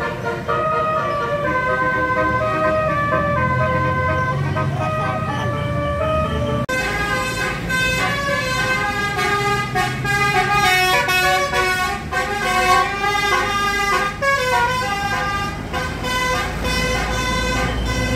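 Bus 'telolet' musical horn playing a tune of held notes that step from pitch to pitch, over a low rumble. About seven seconds in the sound changes abruptly to another horn tune with more notes sounding together.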